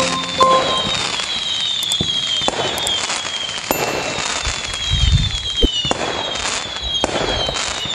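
Fireworks going off: a string of whistles each falling in pitch, with scattered sharp bangs and crackle and a deeper boom about five seconds in.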